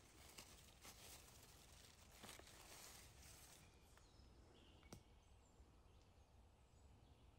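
Near silence: faint crackling of dry leaf litter and twigs, with a few sharp clicks, as a porcini mushroom is pulled from the forest floor. After about four seconds it is quieter still, with a single click and a few faint bird chirps.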